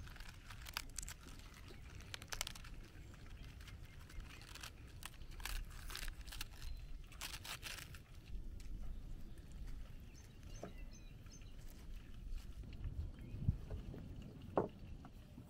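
Crisp lettuce leaves being sliced with a knife held in the hand, pieces dropping into a metal tray: a run of short crunching snaps, thinning out after the middle. Near the end, two sharper knocks as the tray is handled on a wooden table.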